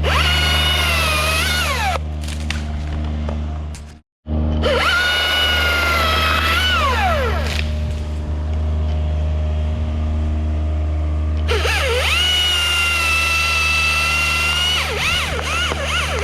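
Husqvarna T540iXP battery top-handle chainsaw running: a high electric whine that holds steady and then drops in pitch as the chain loads up in the cut, rising again when it frees. The whine runs in three spells and is absent for a few seconds in the middle.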